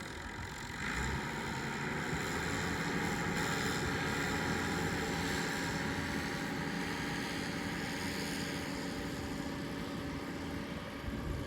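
Old Massey Ferguson tractor engine running steadily at working speed while hay is being baled.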